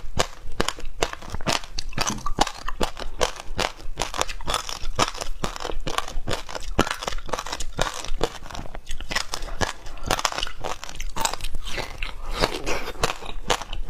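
Shaved ice crunching as it is bitten and chewed, a rapid, unbroken run of sharp crackles close to the mouth.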